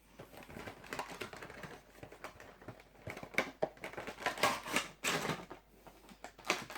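Cardboard-and-plastic toy box being handled: a run of small clicks, taps and crinkles, busier and louder in the second half.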